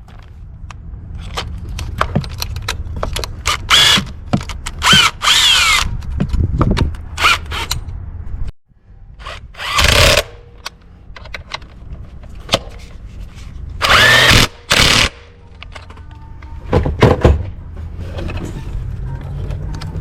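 Handheld power drill or driver spinning in short bursts of about a second, its motor pitch rising and falling, with clicks of tool and parts being handled in between.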